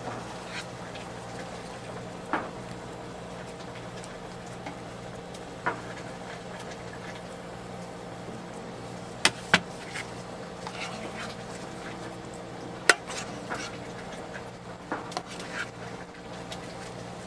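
Steady low hum of kitchen machinery with scattered clicks and taps as a plastic spoon scoops and scrapes filling from a stainless steel pan into pie shells. Two sharp knocks come in quick succession about halfway through, and another comes a few seconds later.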